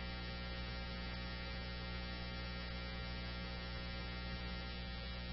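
Steady electrical hum with a buzzy stack of overtones on a radio scanner feed between dispatch transmissions, unchanging throughout.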